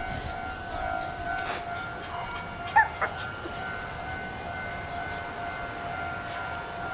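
A white Shiba Inu puppy gives a short, high yelp about three seconds in, with a fainter second one right after. Underneath runs a steady high-pitched tone.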